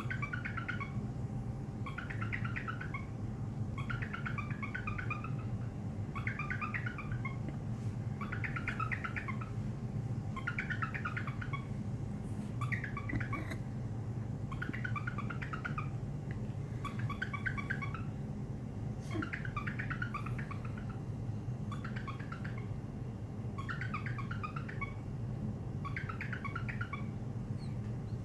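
Cockatiel mimicking the Google Duo video-call ringtone: a warbling, chirpy phrase about a second long, repeated about every two seconds, over a steady low hum.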